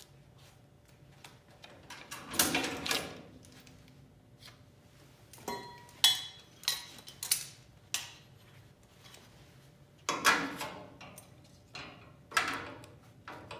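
Steel bracket pieces and a locking clamp being handled and fitted by hand: irregular clinks, knocks and scrapes of metal on metal, some with a brief ring, a few in quick succession around the middle and more near the end.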